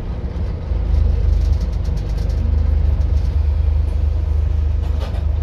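A Scania N230UD double-decker bus's five-cylinder diesel engine and drivetrain running on the move, heard from the upper deck as a steady low rumble that grows louder about a second in, with faint rattles from the body.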